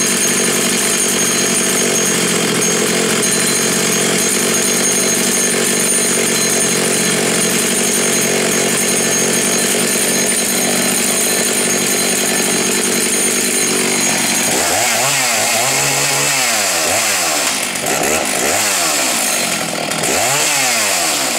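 Two-stroke chainsaw engine running at high speed, steady at first; over the last several seconds its pitch rises and falls again and again as it is revved up and down.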